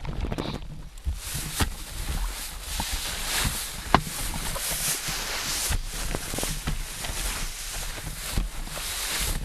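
Footsteps pushing through brush and dry leaves, with sharp snaps of twigs now and then.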